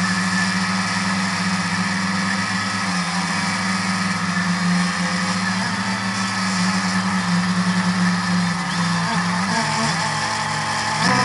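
Drone's electric motors and propellers humming steadily, heard close up from the onboard camera, with the pitch wavering briefly about nine seconds in and shifting again near the end as the throttle changes.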